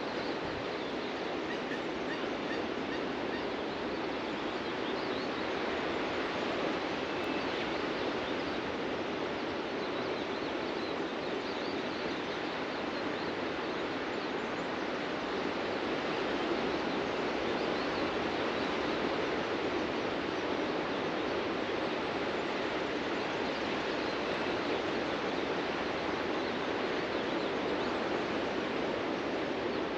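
Ocean surf breaking on a sandy beach, heard as a steady, continuous wash of waves that swells a little about halfway through.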